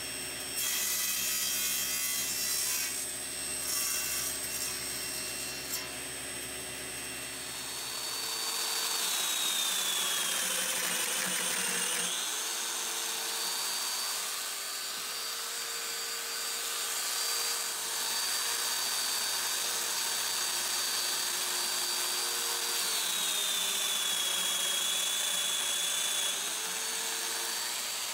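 Table saw running and crosscutting walnut, with a couple of cutting passes in the first few seconds. About eight seconds in it gives way to a Festool Domino joiner running, its motor pitch sagging twice under load as it plunges mortises into the walnut.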